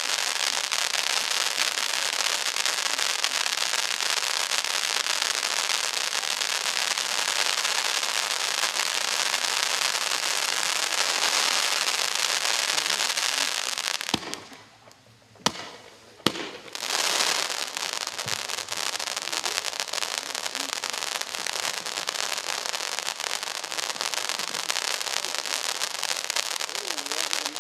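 Pyrotechnic fountain (РС2572 'Luxury' fountain) spraying sparks: a steady loud hiss with crackling. About halfway through it dies down for a couple of seconds, with a few sharp pops, then starts up again and runs on.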